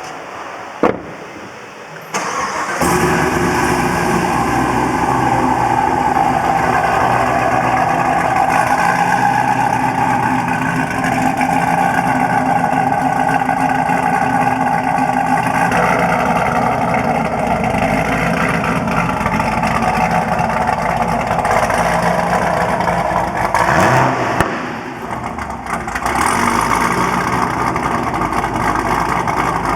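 Supercharged LT4 V8 of a 2017 Camaro ZL1, freshly rebuilt with new cams and crank, started for the first time: it catches about two seconds in and settles into a loud idle through long-tube headers and a Borla ATAK exhaust. Near the end it revs briefly, drops quieter for a moment, then returns to the loud idle.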